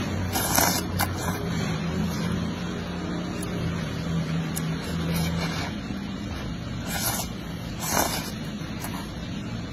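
A person slurping thin noodles in spicy broth, several short slurps: the loudest about half a second in, at seven seconds and at eight seconds. A steady low hum lies underneath.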